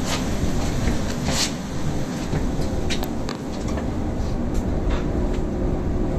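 Tokyo Monorail 10000-series train running on its rubber tyres along the guideway, heard inside the car as a steady low rumble. Scattered short clicks and taps sound over it, the most distinct about a second and a half in and around three seconds in.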